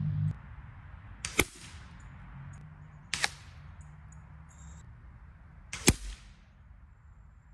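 Three sharp shots from a suppressed .177-calibre Stroger 5800E-Tac air rifle, about a second and a half, three seconds and six seconds in, each with a short ring after it.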